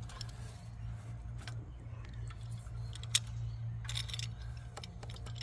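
Light metallic clinks and taps of tools or parts being handled, with one sharp click about three seconds in, over a steady low hum.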